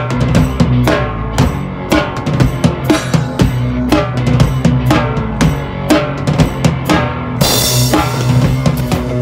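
Drum kit played live in a rock band: rapid kick and snare hits over held guitar notes. A cymbal crashes near the end.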